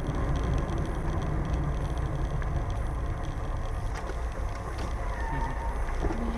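Car driving along a road, heard from inside its cabin through a dashcam microphone: a steady low rumble of engine and tyre noise.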